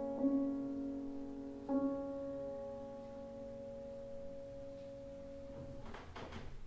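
Erard grand piano playing the closing chords of a slow piece: a chord struck just after the start and another near two seconds, then held and left to ring and fade away. A few soft knocks come near the end as the chord is released.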